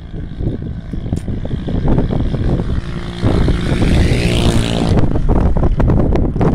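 Wind buffeting the microphone, with a motor drone coming in about three seconds in and a whine over it that rises in pitch and stops about two seconds later.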